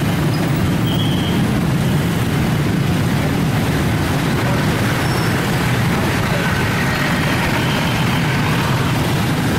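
Steady low rumble of a heavy road vehicle's engine with road traffic noise, even and unbroken throughout.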